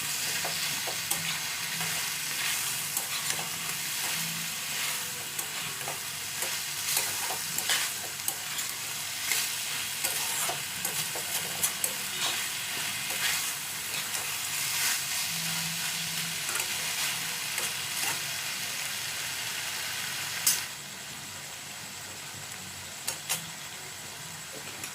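Chicken and onion sizzling in a pan while being stirred, with the spatula scraping and clicking against the pan. About twenty seconds in, a sharp knock comes and the stirring stops, leaving a quieter steady sizzle with a couple of taps.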